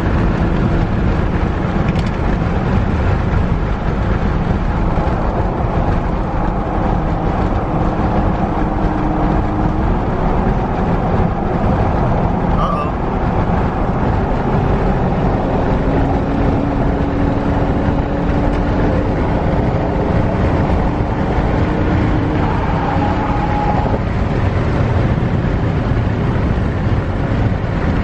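Steady road and engine noise inside a car cruising on a highway, with a faint engine tone holding nearly level underneath.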